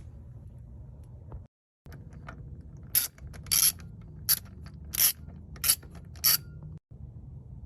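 Hand ratchet wrench clicking in six short bursts, about one and a half a second, as a bolt is worked back and forth. A low steady hum lies underneath.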